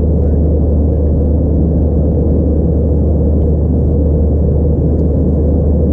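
Steady cabin drone of an Airbus A321-211 in flight, heard inside the cabin beside the wing: the CFM56 engines and the airflow make an even, deep hum with a rushing noise above it.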